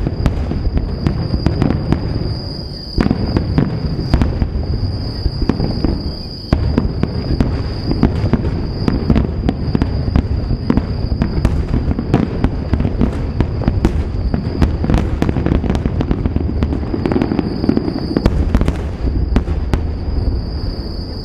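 Fireworks finale: aerial shells bursting in a dense, continuous barrage of booms and crackles, with brief lulls about three and six seconds in. A steady high insect trill runs underneath.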